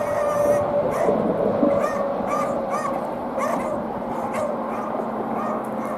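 Beagles baying on a rabbit's scent trail: a string of short, repeated pitched barks and yelps, about two a second.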